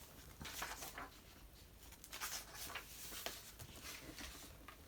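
Faint rustling and sliding of paper, several soft brushes a second or so apart, as a picture book is handled and opened.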